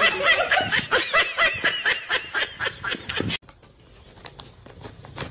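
A person laughing in rapid, high-pitched bursts, cut off suddenly about three and a half seconds in. After that, faint rustling and clicks as a cat paws into a crinkly snack bag.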